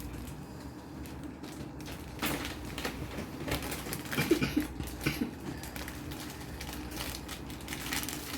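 Irregular light clicks and knocks of kitchen utensils against a mixing bowl, starting about two seconds in, while cake mix is handled, over a faint steady hum.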